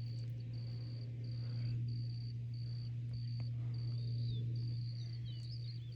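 Bees buzzing at zucchini flowers as they pollinate them, a steady low hum that swells slightly now and then. Over it, a high short chirp repeats evenly, just under twice a second.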